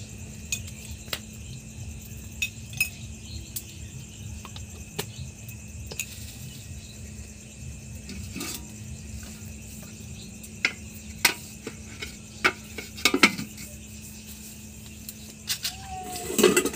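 Crickets chirping steadily with a low hum underneath, and scattered sharp clicks and clinks of metal kitchenware around an iron kadai of heating mustard oil. Near the end a steel bowl lid clatters on a pot, the loudest sound.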